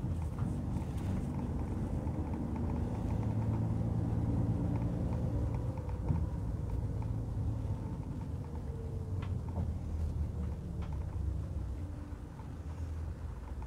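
Engine hum and road rumble heard from inside a moving vehicle, easing off somewhat near the end, with a few light rattles.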